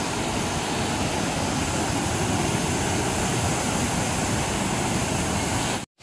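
Waterfall rushing: a steady, even roar of falling water that cuts out for an instant near the end.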